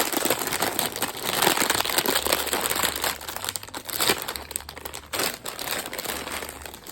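Tortilla chip bag crinkling as it is opened and handled, a dense crackle of plastic packaging throughout.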